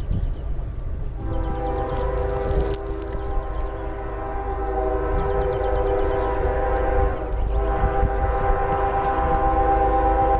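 Air horn of the approaching CSX ES40DC diesel locomotive blowing a chord: a long blast starting about a second in, a short break around seven seconds, then a second long blast, over a low rumble.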